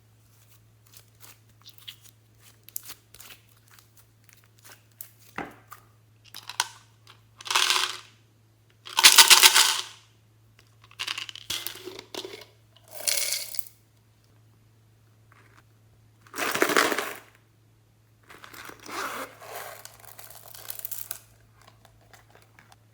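Hands-on slime-making noises: a run of small clicks, then short rustling, crinkling bursts as small add-ins and their packaging are handled and tipped out, over a faint steady electrical hum.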